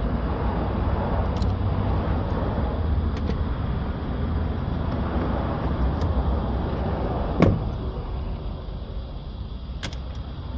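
Steady low background rumble, with a few light clicks and one sharper knock about seven and a half seconds in, as the window regulator motor is unscrewed and lifted off the inner panel of an Audi A6 C6 rear door.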